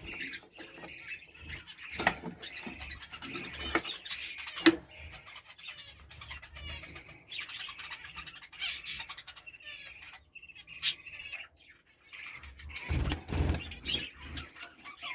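Lovebirds chirping in many short, high-pitched calls, with a few sharp clicks and a brief low rumble near the end.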